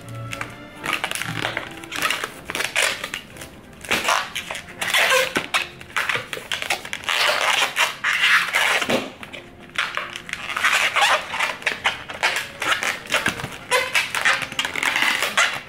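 Latex modelling balloons squeaking and rubbing as they are twisted and squeezed into a balloon animal, in uneven bursts of squeaks and crackles.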